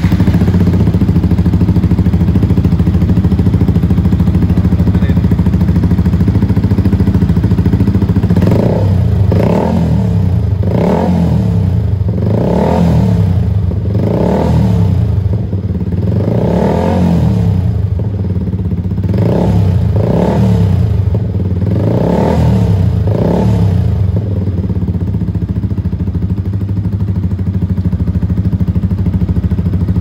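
Yamaha XSR155's single-cylinder engine running through an aftermarket exhaust fitted with a dB killer with a strainer insert. It idles, then takes about a dozen short throttle blips, each a quick rise and fall in pitch, and settles back to idle.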